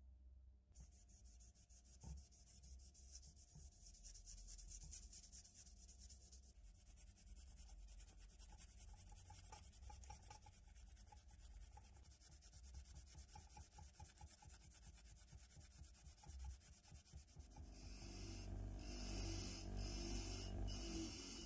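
A brass lamp part is scrubbed by hand with a scouring pad, a fast, steady rasping rub. About 18 seconds in, a louder bench grinder fitted with a wire brush wheel takes over as a small brass part held in pliers is pressed against the wheel, the sound dipping briefly a few times.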